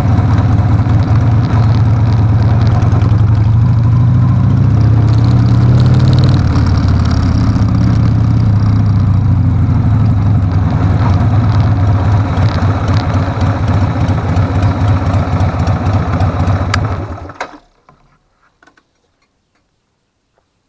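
1994 Harley-Davidson Sportster 1200's air-cooled V-twin running at low road speed on a freshly cleaned carburetor, its pitch rising and falling slightly. About seventeen seconds in, the engine cuts off suddenly as it is switched off.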